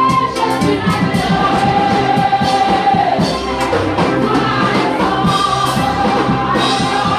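A large congregation singing a Pentecostal worship chorus with a band, long held sung notes over a steady drum beat.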